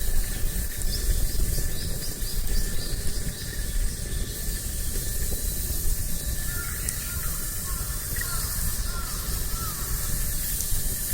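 Outdoor nature ambience: a steady low wind rumble and a hiss, with birds calling over it. A run of quick high chirps comes in the first few seconds, then a series of short whistled notes, about two a second, from the middle to near the end.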